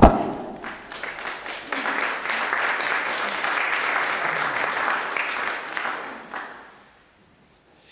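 A small audience applauding: a sharp thump right at the start, then clapping that swells, holds, and dies away about a second before the end.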